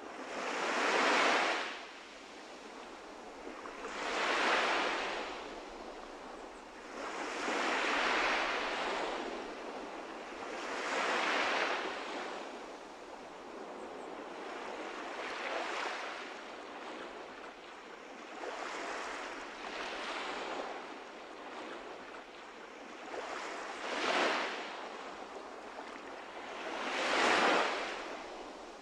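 Ocean surf breaking and washing up a flat sandy beach, the wash swelling and fading about every three to four seconds, loudest near the start and again near the end.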